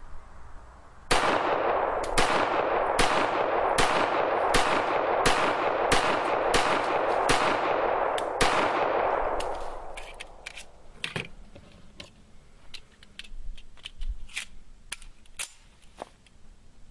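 Para-Ordnance GI Expert .45 ACP 1911 pistol fired in a steady string, about one shot every two-thirds of a second, each shot ringing out with an echo. The shots stop about 8 seconds in, and lighter sharp clinks and ticks follow.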